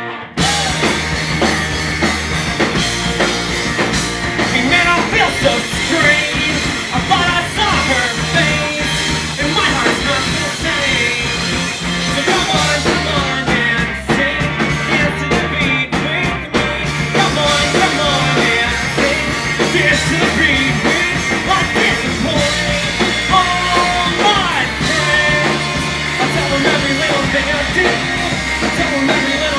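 Live rock band playing loudly, the full band crashing in just after the start over what had been guitar alone, with a singer's voice over the music.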